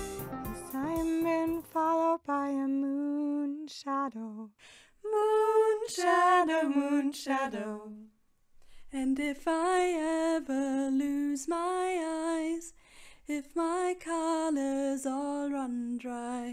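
A woman singing a slow melody alone, without accompaniment, her held notes wavering with vibrato; the last plucked guitar notes fade out at the start.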